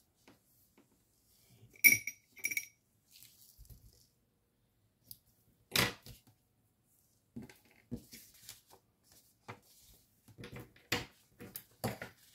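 Small objects being handled and set down on a hard surface. Two ringing metallic clinks come about two seconds in, followed by scattered knocks and taps.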